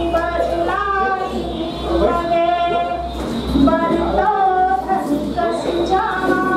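A woman singing Hindi metrical verse (chhand) into a microphone in a melodic chant, holding long notes and gliding between them.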